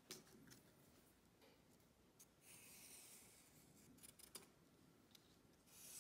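Faint scratching of a marker pen drawn along cardboard while tracing around a plastic object, in two short strokes, one about two and a half seconds in and one near the end, with a few small clicks and taps of handling the object and pen.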